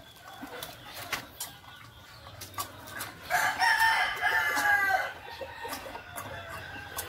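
A rooster crows once, about three seconds in, a single call lasting nearly two seconds, with scattered sharp clicks around it.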